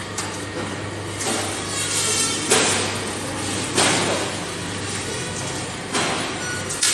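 P-beam welded-tube roll forming line running: a steady low hum under constant machine noise, with about five sudden louder surges of noise that each die back within a second or so.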